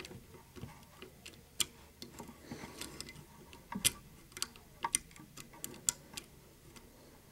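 Lock picks clicking and scraping against the levers of a seven-lever safe-door lock under tension: irregular light ticks with a few sharper clicks.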